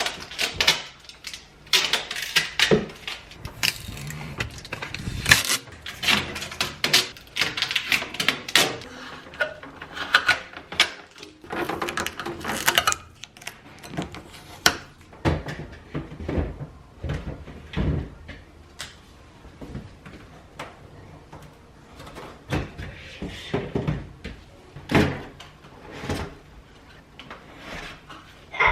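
Irregular clatter and knocks of fridge drawers, shelves and food containers being handled and taken out while a refrigerator is emptied for cleaning, with rustling between the knocks.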